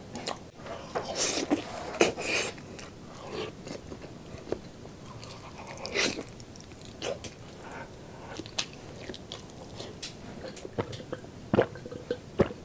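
A man biting and chewing braised pork knuckle close to the microphone: irregular smacking and chewing sounds of mukbang eating.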